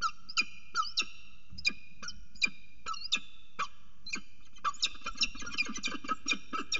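Peregrine falcons calling: sharp, piercing calls about twice a second, breaking into a fast run of many calls from about two-thirds of the way in, as a second falcon comes in during a prey hand-over.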